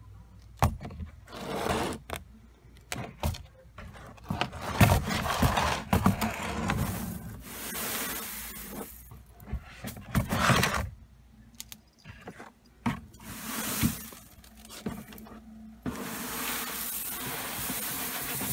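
Dry crushed mustard stalks and pods rustling and crackling in a plastic tote, with irregular knocks and scrapes of the plastic as the tote is handled and tipped. A steadier hiss sets in near the end.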